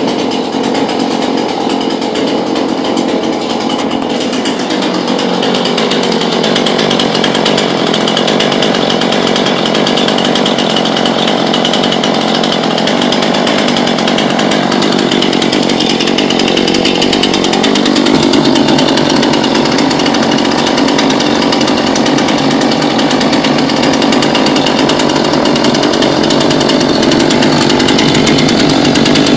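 Husqvarna 440 chainsaw's two-stroke engine idling steadily just after its first start. Its note dips a few seconds in, and it grows slightly louder about two-thirds of the way through.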